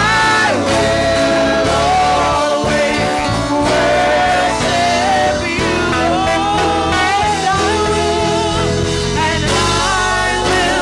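Women's voices singing a gospel praise-and-worship song through microphones, with instrumental accompaniment.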